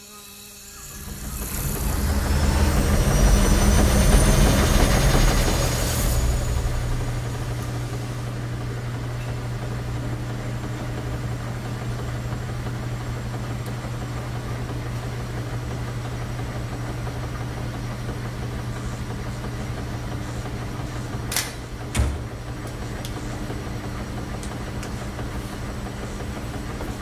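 A swelling rush with rising whistling glides, cut off suddenly about six seconds in, gives way to the steady low hum of laundromat washing machines running with their drums turning. Two short knocks sound near the end, the second louder.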